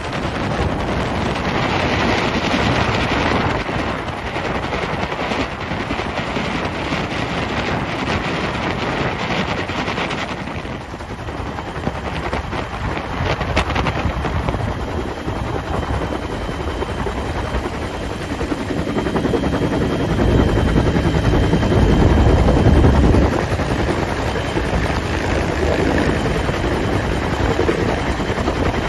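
Helicopter in flight, heard from on board: the rotor's rapid chop and the engine run steadily. The low rumble swells louder about two-thirds of the way through.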